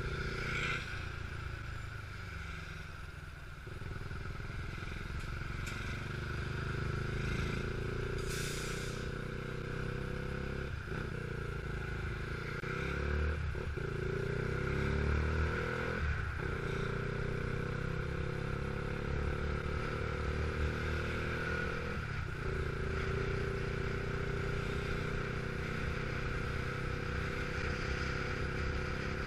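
Motorcycle engine heard from the bike itself, pulling along the road with wind and road noise. Its pitch climbs and drops back at four gear changes, spread through the middle of the stretch.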